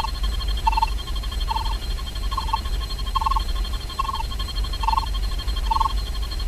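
Short electronic two-tone blip sound effect repeating evenly, about once every 0.8 seconds, over a steady low hum.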